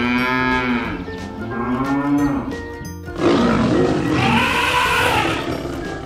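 Drawn-out, moo-like animal calls, each rising and then falling in pitch, about four in a row, the third the longest and loudest, over steady background music.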